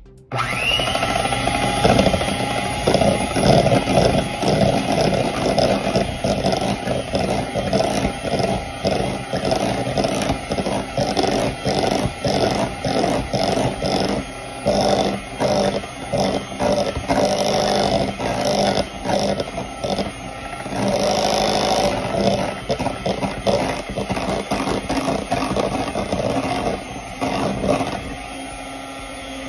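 Electric hand mixer switched on and running, its motor spinning up and then holding steady as the beaters whip cake batter, with constant scraping and clattering of the beaters against the bowl. It gets somewhat quieter near the end.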